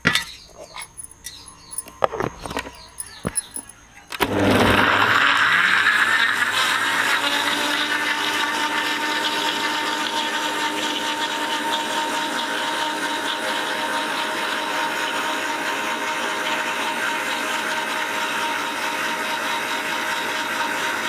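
An electric mixer grinder blends apple with sugar and water. First come a few clicks and knocks as the jar is handled. About four seconds in, the motor starts suddenly, loudest as it spins up, then runs steadily as the blades churn the fruit into a smooth juice.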